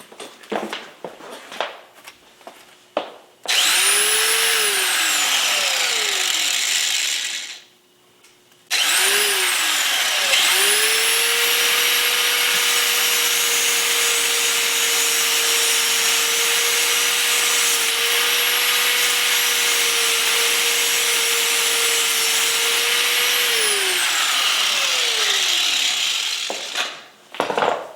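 A high-speed power tool with a cutting wheel spins up with a rising whine and cuts through a bicycle chain with a harsh grinding rasp. It runs briefly, winds down, then spins up again for a long cut of about 16 s before winding down with a falling whine. A few handling clicks come before the first start.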